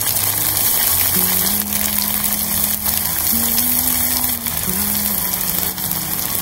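Half-cooked rempeyek (peanut rice-flour crackers) deep-frying in very hot oil for their final frying, the oil sizzling steadily around them. Background music with slow, held low notes plays underneath.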